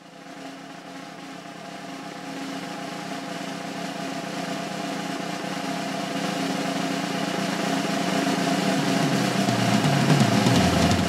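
Closing music: a held chord over a dense rolling swell that grows steadily louder, then cuts off abruptly at the end.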